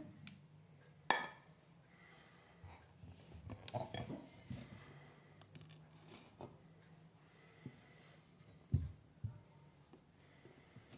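Aluminium cake pan knocking and clinking against a glass cake stand as a hot cake is turned out onto it: a sharp clink about a second in, a few small knocks and rustles around four seconds, and two dull thumps near the end as the upturned pan is handled to release the cake.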